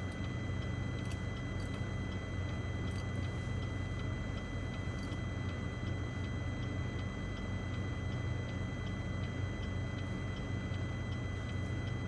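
Steady low hum inside a car's cabin, with a faint steady high-pitched whine above it.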